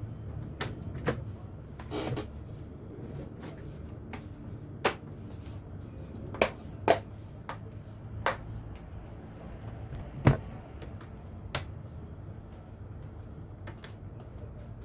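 Irregular sharp clicks and light knocks of small hard parts and tools being handled during laptop repair, about nine in all, the loudest about ten seconds in, over a steady low hum.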